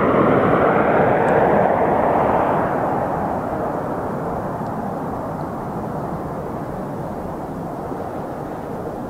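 Antonov An-26's two turboprop engines and propellers running loudly as the plane passes overhead on landing approach and moves away. The sound fades steadily after the first couple of seconds, with a slight drop in pitch.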